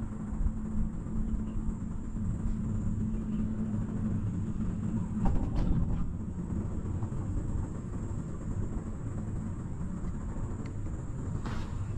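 Cable car gondola running along its haul rope, heard from inside the cabin as a steady low rumble and hum. About five seconds in, a short clatter of knocks sounds as the cabin rolls over a support tower's sheaves. The hum stops there and a plainer rumble goes on.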